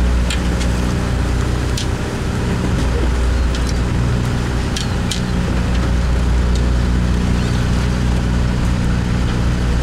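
Sportfishing boat's diesel engine running with a steady low drone, with a few short sharp clicks from the deck over it.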